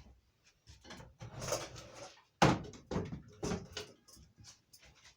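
Handling noises: rustling and a string of irregular knocks, the loudest about two and a half seconds in.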